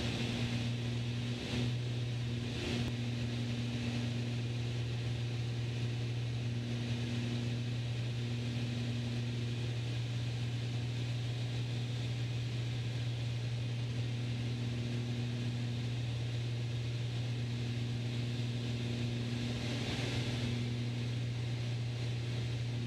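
Steady drone of a Beechcraft Baron B55's twin piston engines and propellers heard in the cabin at approach power, gear and landing flaps down. A higher hum fades in and out every few seconds over the steady low drone.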